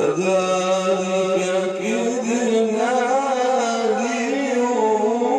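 A man's voice in melodic Quran recitation, holding one long, ornamented note that starts abruptly and wavers up and down from about halfway through.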